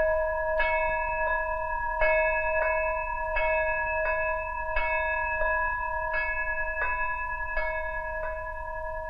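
A small sanctuary bell rung by a man tugging its rope with his teeth, struck over and over at about one and a half strokes a second, each clang ringing on into the next. The ringing marks the start of the rite.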